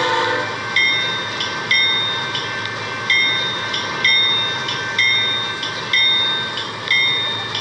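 A bell ringing about once a second, each strike sharp and then fading, over the steady noise of a train. A train horn blast cuts off in the first half second.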